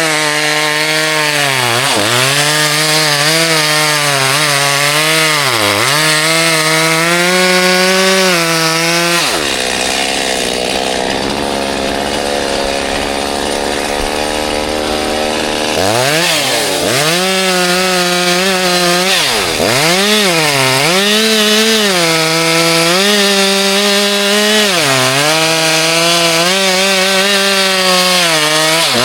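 Chainsaw cutting wood, its engine note dipping under load and picking back up again and again. About nine seconds in it settles to a lower, steadier note for several seconds, then revs back up and keeps cutting.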